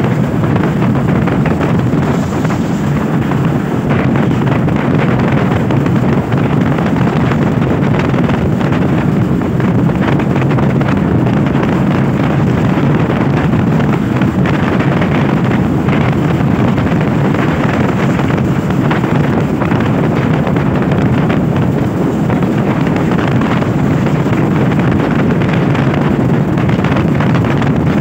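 Steady wind noise buffeting the microphone of a moving motorcycle, with the vehicle's running noise underneath.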